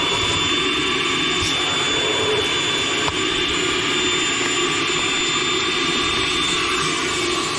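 Shop vacuum running steadily: a rush of air with a steady high motor whine, its hose working around the spark plugs to clear debris from the engine.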